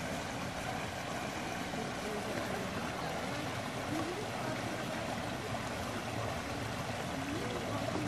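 Shallow stream running over rocks, a steady wash of water, with faint voices of people in the background.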